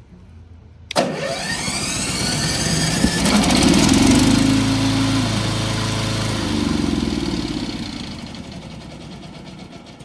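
The VTLM800 remote-control mower's Longxin gasoline engine, started from the remote, catches about a second in. It revs up to a peak a few seconds later, then drops back and settles toward idle.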